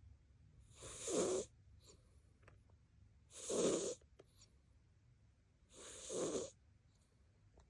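A sleeping cat snoring: three snores about two and a half seconds apart, each lasting a little over half a second.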